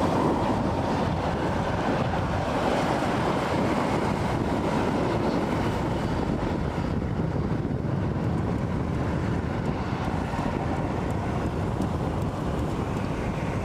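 Wind buffeting the microphone over breaking surf, with a High Speed Train (InterCity 125) running past along the sea-wall line behind it. Steady throughout.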